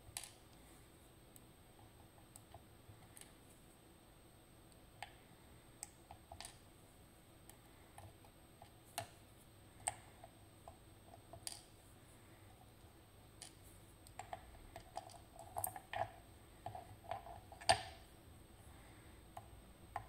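Sparse small metallic clicks and taps: a Ruko 500 pin tumbler lock being disassembled, its brass plug, pins and parts handled with steel tweezers and set down in a wooden tray. The clicks come closer together in the last few seconds, and the loudest falls near the end.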